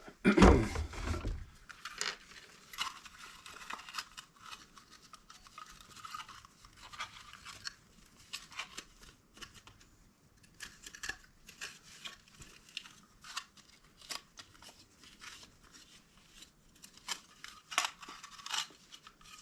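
Irregular scratching and scraping as the plastic housing of a mechanical seatbelt chime module is cleaned by hand, after a louder handling noise in the first second or so.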